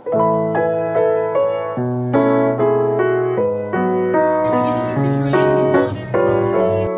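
Gentle piano background music, a steady run of single notes and chords, with a faint hiss of room noise joining about four and a half seconds in.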